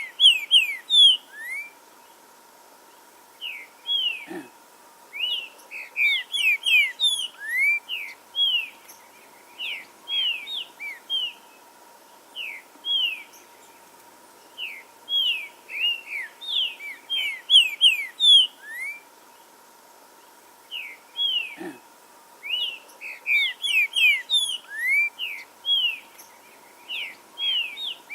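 Green-winged saltator (trinca-ferro) singing: phrases of rapid, clear whistled notes, each phrase a few seconds long, with short pauses between them.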